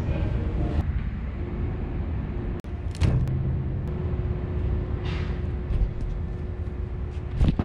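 Steady low outdoor rumble, with a sharp knock about three seconds in and a louder knock near the end as things are set down on and picked up from a metal mesh patio table.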